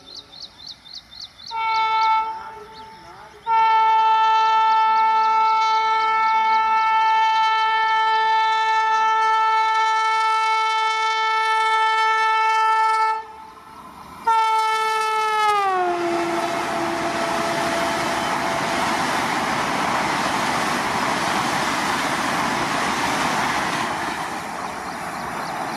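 Vande Bharat Express electric train horn: a quick run of short toots, then a short blast and a long blast held for about ten seconds. Then comes another short blast and a final one that drops in pitch as the train passes. After that the steady rushing rumble of the train going by fills the rest.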